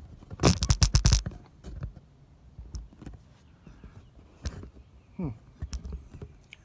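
Handling noise from a phone camera being fiddled with and repositioned: a quick run of knocks and scrapes about half a second in, then scattered clicks and taps.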